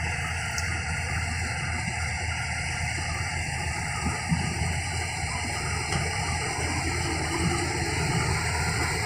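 Yanmar combine harvester's diesel engine running steadily, a constant low drone with a few faint knocks along the way.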